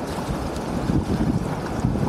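Steady rush of water pouring through a cut in an earthen dam, mixed with wind buffeting the microphone.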